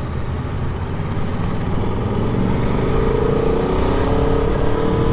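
Aprilia Tuono V4 1100's V4 engine running under way, its pitch rising steadily from about two seconds in as the bike accelerates.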